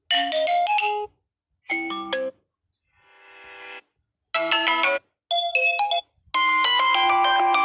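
Phone ringtones previewed one after another from a ringtone list: about six short melodic snippets, each cut off abruptly after a second or less as the next one is selected. One, a little before the middle, is quieter and swells up.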